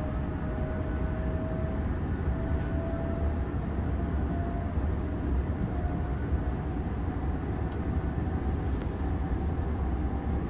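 Interior of a Sydney Trains OSCAR H set double-deck electric train car in motion: a steady low rumble of the running gear with a thin whine that rises slowly in pitch, typical of the traction motors as the train gathers speed.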